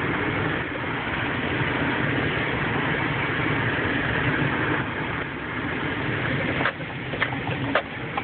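Cabin noise of a 2003 Nissan Pathfinder driving on a bumpy dirt trail: its 3.5-litre V6 and the tyres on the dirt make a steady rumble, with a few sharp knocks or rattles in the last second and a half.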